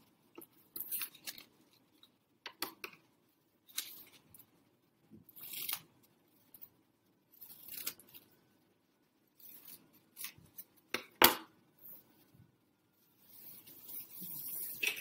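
Scissors cutting paper, a short snip every second or two, one of them sharper and louder about eleven seconds in. Paper is rustled on the table near the end.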